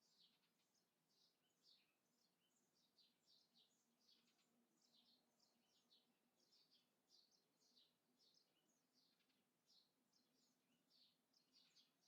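Very faint, continuous chatter of small birds chirping, several short high chirps a second without a break. A faint steady low hum lies underneath.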